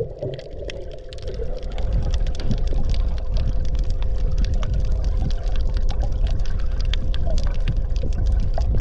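Underwater sound picked up by a submerged camera: a low rumble of moving water with a dense crackle of sharp clicks and a steady hum. It grows louder over the first two seconds.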